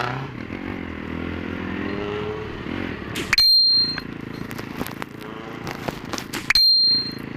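Two short, high-pitched beeps about three seconds apart over the running noise of a motorcycle ride, with the engine rising in pitch early on.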